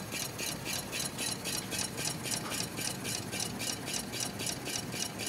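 Homemade diaphragm Stirling engine running, a steady rhythmic rubbing and rattling at about four strokes a second. The steel wool inside the displacer rubs a good bit, and perhaps something more than the steel wool is rubbing too.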